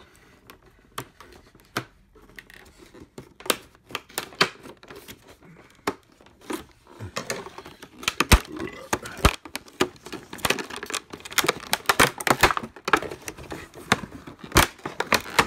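Stiff plastic clamshell blister packaging crackling and crinkling as hands grip and pry at it, in irregular sharp clicks and snaps that become much busier about halfway through.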